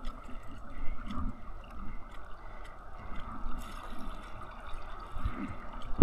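Sea water lapping and trickling against a kayak's hull, with small drips and splashes.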